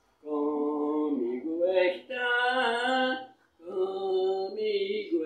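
An elderly woman singing unaccompanied in slow, long held notes, with her phrases broken by a short pause about three and a half seconds in.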